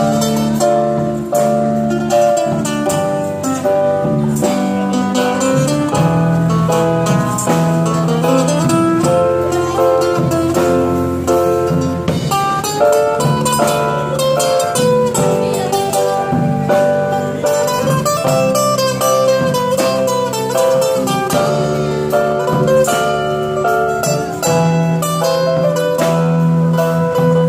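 Live band playing an instrumental passage with no singing: a guitar carrying the melody over keyboard and drum kit.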